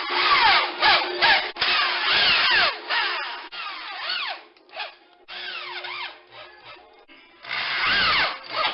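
Power drill driving drywall screws to fix corner bead, in about five short bursts whose pitch falls during each run, with gaps between them. Background music plays underneath.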